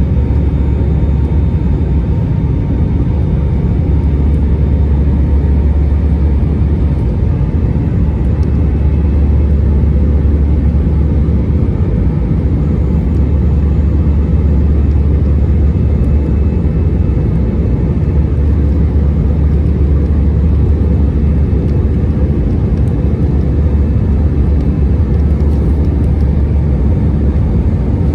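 Cabin noise inside an Airbus A319 in its climb after takeoff: a steady low rumble of jet engines and airflow, with faint thin steady tones above it.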